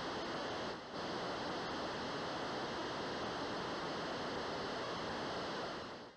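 Steady hiss of even noise, like static, dipping briefly about a second in and fading out near the end.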